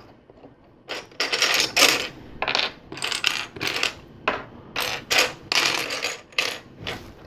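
Loose LEGO plastic pieces clattering and rattling in a series of short bursts as a hand rummages through a pile of parts.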